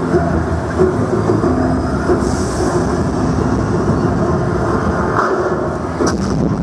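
Loud, dense, rumbling soundtrack played over stage speakers: heavy low music and effects with held low tones, with a brief hiss about six seconds in.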